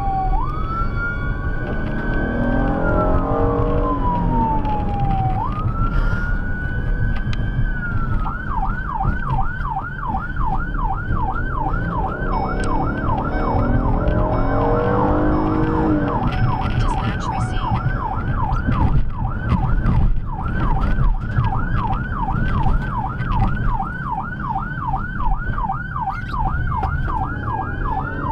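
Electronic siren of a fire chief's car, heard from inside the moving vehicle over engine and road noise. It starts as a slow rising and falling wail, then switches about eight seconds in to a fast yelp of roughly two to three sweeps a second.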